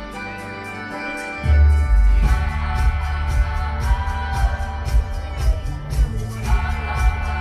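Show soundtrack music with singing over held chords. About one and a half seconds in, a heavy bass and a steady drum beat come in.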